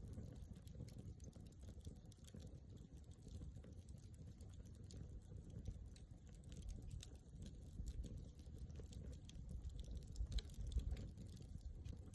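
Wood campfire crackling, with frequent small pops over a low rumble.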